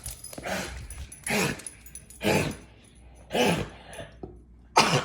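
A dog giving five short, loud yelping barks about a second apart, each dropping in pitch.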